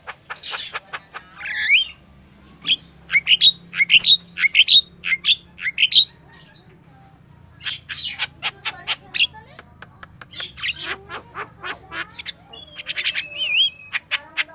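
Yellow-vented bulbul singing vigorously in quick runs of chirping, bubbly notes with a few sweeping whistles, breaking off for about a second midway before starting again.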